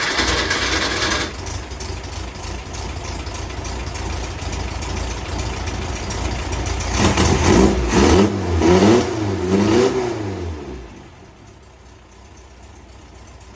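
VW dune buggy's air-cooled flat-four engine running just after its first start. It is revved up and down three times between about seven and ten seconds in, then goes quiet about eleven seconds in.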